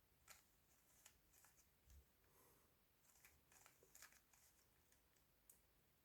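Faint, irregular plastic clicks and rattles of a Rubik's cube being turned and handled, about a dozen short clicks.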